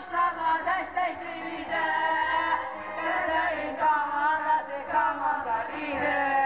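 Performers singing a song into stage microphones over an instrumental backing with a regular bass beat.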